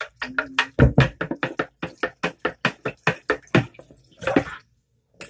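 Wooden spoon stirring a thin liquid mix of rubbing alcohol and aloe vera in a plastic measuring pitcher: quick clacks of wood on plastic and splashing liquid, about five strokes a second, stopping shortly before the end.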